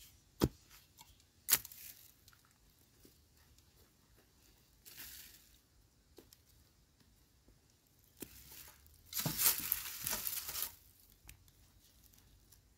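Dry soil and fine roots being scraped and pulled by hand in a digging hole while unearthing a wild yam tuber. Two sharp knocks in the first two seconds, a brief scrape about five seconds in, then a longer, louder scraping rustle of earth about nine seconds in.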